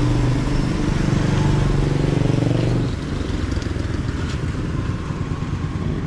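Motorcycle tricycle engine running close by, then dropping away about three seconds in, leaving low street noise.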